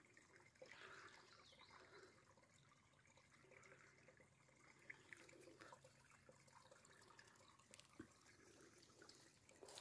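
Near silence: faint trickling of spring water welling back up from underground into a muddy pool, with a few small scattered drips.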